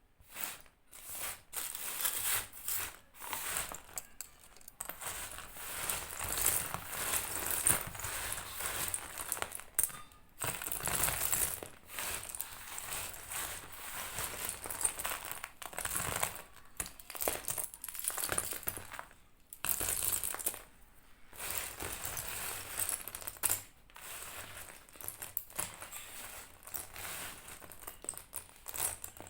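Slate pencils being bitten and chewed: rapid, crisp crunching in runs broken by short pauses.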